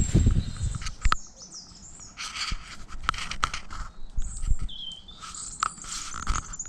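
Small birds chirping in short, high calls, with a few low thumps in the first second and several sharp clicks scattered through.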